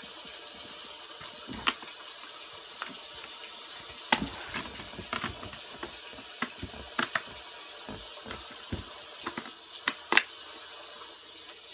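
Sharp, irregular plastic clicks and knocks from DVD cases and discs being handled, opened and snapped shut, over a steady hiss.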